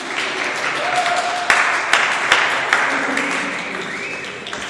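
Audience applauding, swelling over the first couple of seconds and then slowly dying down, with a few voices calling out over the clapping.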